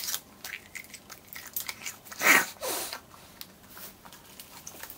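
Wet mouth noises from chewing a large wad of chewing gum: scattered small clicks and smacks, with a short vocal sound falling in pitch about two seconds in.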